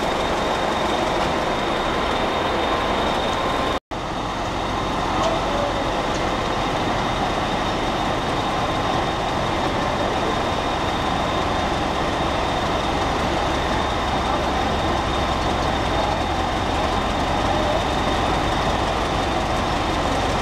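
Narrow-gauge NDM1 diesel locomotive's engine running steadily: a continuous mechanical hum with a thin high whine above it. The sound cuts out for an instant about four seconds in.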